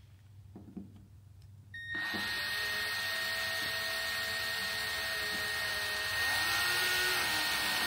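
Milwaukee cordless screwdriver running steadily, driving screws into the base plate of a wingtip light. It starts about two seconds in, and its note shifts and grows a little louder about six seconds in.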